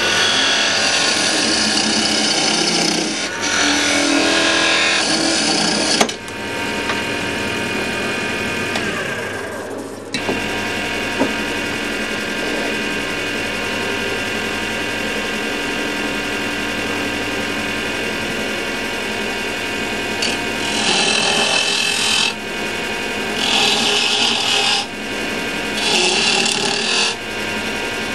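Axminster wood lathe running with a steady motor hum while a turning tool cuts into the spinning candlestick blank. The cutting is heard during the first few seconds and again as repeated short scrapes over the last third.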